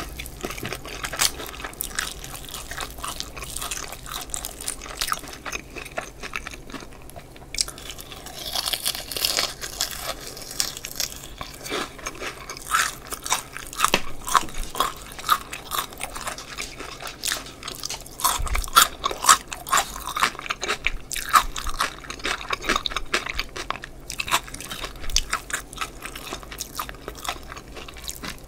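Bites into the crust of crispy fried chicken drumsticks close to the microphones, with chewing between them. The crunches come in many irregular crackles, loudest in clusters a little past the middle.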